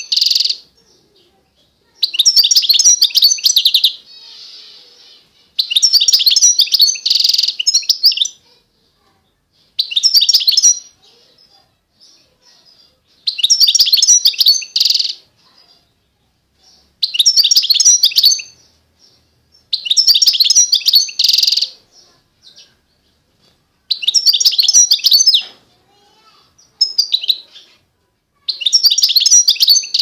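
A small songbird singing a run of short, high-pitched warbling phrases, each about one to two seconds long. There are about nine of them, with brief pauses of a second or two between.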